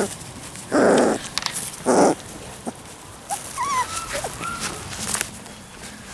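Labrador retriever puppies whimpering and whining in thin, high, bending cries, with two louder, rougher cries about one and two seconds in.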